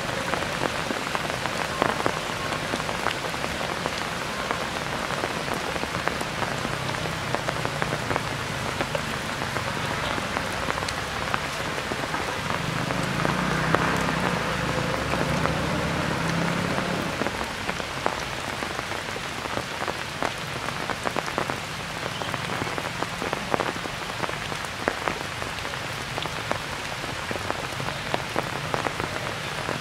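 Steady rain falling on forest foliage, a continuous patter with many individual drops ticking. A low rumble swells for a few seconds in the middle.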